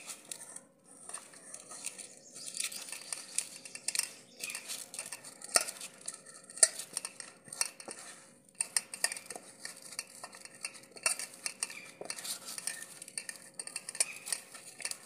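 Hands squeezing and mixing a soft mash of boiled potato and paneer in a stainless steel bowl, with irregular small clicks and taps against the metal.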